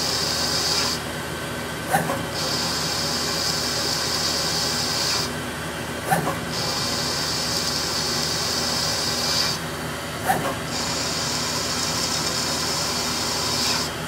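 Hardinge HLV CNC lathe turning the cone on a rifle barrel over repeated passes: a steady hiss over a low hum, broken about every four seconds by a short lull that ends in a sharp click as the tool starts the next pass.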